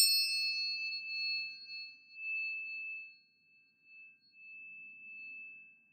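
Metal tuning fork struck once, then ringing with a long, steady, high-pitched tone; its fainter upper overtones die away while the main tone swells and fades, briefly almost vanishing before it returns.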